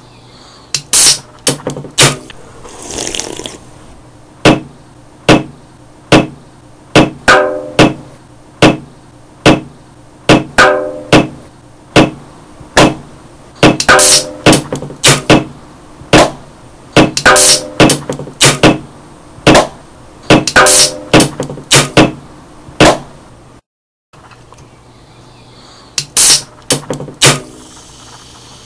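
Percussive beat made from an aluminium Pepsi can: sharp taps, knocks and ring-pull flicks layered in a steady rhythm of about one hit a second with quicker doubles, some hits leaving a short ringing tone. A short hiss comes about two seconds in, and the beat breaks off briefly near the end.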